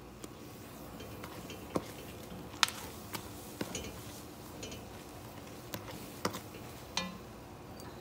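Spatula stirring thick melted marshmallow in an enamelled pot, knocking against the pot's sides in irregular sharp clicks, about eight in all, the loudest about two and a half seconds in.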